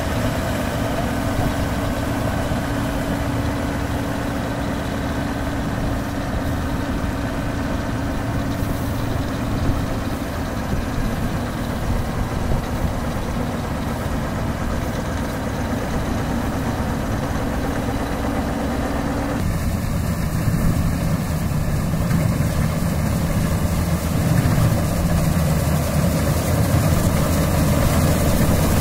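Diesel engine of a GAM crawler combine harvester running steadily, its threshing machinery turning. About two-thirds of the way through, the sound shifts abruptly to a deeper, slightly louder running.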